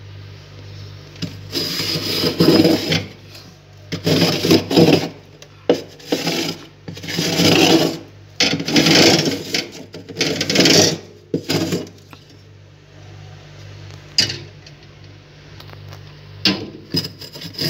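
Frost inside a freezer being scraped with a metal cup: about eight scraping strokes, each a second or so long, over a low steady hum. A quieter pause follows with one sharp click, then the scraping starts again near the end.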